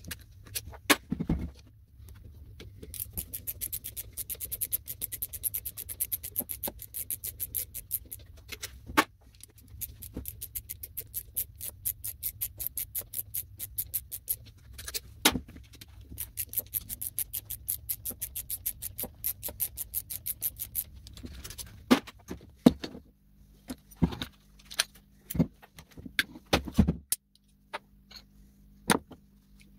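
Fast runs of even clicking from a ratcheting screwdriver as screws are backed out of small electric pump motors, with scattered knocks of metal parts on a workbench. Near the end a steady low hum sets in under louder knocks.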